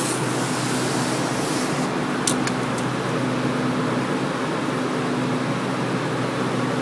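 Daikin packaged air conditioner running: a steady hum and the whoosh of the condenser fan. A brief high hiss sits over the first second or two, and a few light clicks come a little over two seconds in.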